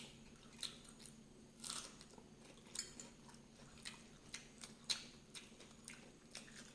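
A person chewing and biting food close to the microphone: a dozen or so faint, irregular clicks of mouth and teeth, one a little sharper past the middle.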